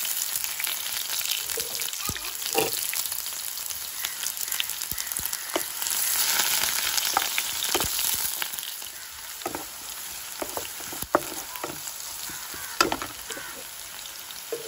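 Sliced onion and garlic sizzling in hot oil in a pan, stirred with a spatula that scrapes and knocks against the pan now and then. The sizzle swells about six seconds in and settles down again a few seconds later.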